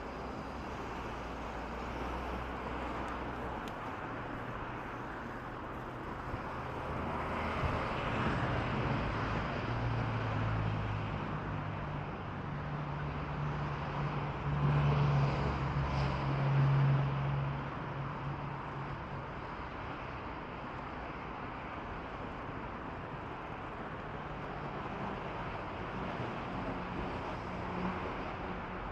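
Street traffic noise with a motor vehicle's engine hum that swells to its loudest about halfway through, then fades, as the vehicle passes.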